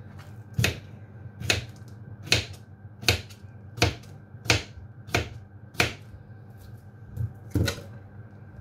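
Kitchen knife slicing a cucumber into rounds, each stroke ending in a sharp knock of the blade on a plastic chopping board: about nine cuts, roughly one every three-quarters of a second.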